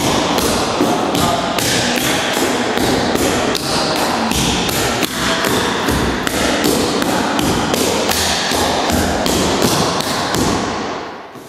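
Clogging taps on a wooden floor: a steady rhythmic stream of sharp clicks and stamps from a dancer's tap shoes, fading out near the end.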